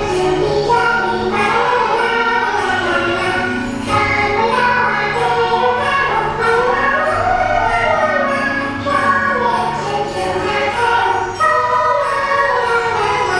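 Music with a choir singing a flowing melody over steady, sustained bass notes.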